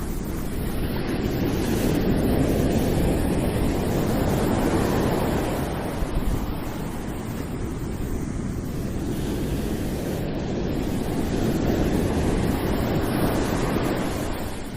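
Ocean surf: waves breaking and washing ashore as a continuous rush that swells twice, rising to a peak and easing off in between.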